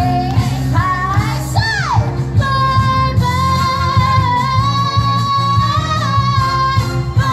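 Pop song with a singing voice over a steady beat: the voice swoops up and down in quick slides for the first two seconds, then holds one long high note until near the end.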